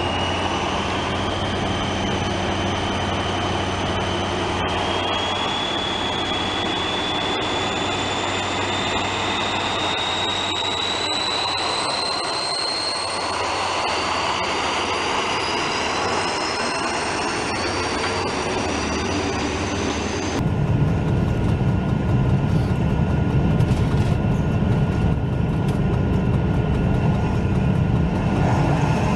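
HO-scale model train running on the track: a high electric-motor whine that rises slowly in pitch over the rattle of wheels on rail. About two-thirds of the way through, this changes abruptly to a louder, rough rumble, as heard from a camera riding on the moving train.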